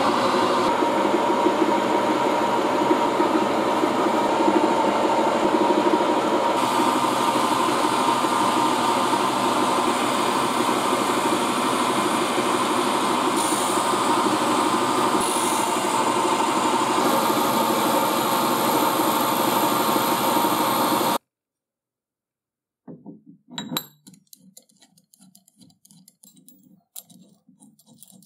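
Vertical milling machine running, its cutter machining into a round metal disc clamped to the table: a steady mechanical cutting noise with a held whine, which cuts off abruptly about 21 seconds in. After a short silence, faint light metallic clicks and knocks as the disc is handled and bolted to a lathe faceplate.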